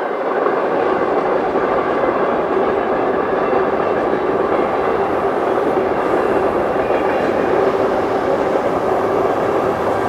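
Freight train cars rolling past on the rails: a steady rumble of steel wheels on track with a faint constant hum.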